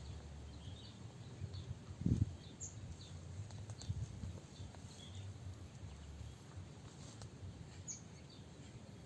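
Outdoor swamp ambience: scattered short, high chirps, likely small birds, over a low rumble, with one dull thump about two seconds in.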